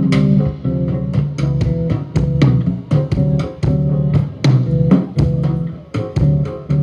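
Instrumental music: a guitar plays a steady run of plucked notes over a bass line.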